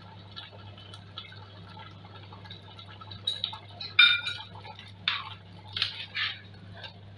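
Metal spoon stirring thick soup in a stainless steel pot, with several sharp clinks against the pot, the loudest about four seconds in. A faint low hum runs underneath.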